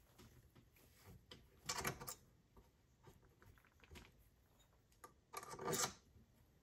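Sling swivel stud being screwed into a wooden shotgun stock with a metal punch through its eye for leverage: faint metal clicks, with two louder half-second bursts as the stud is turned, about two seconds in and near the end.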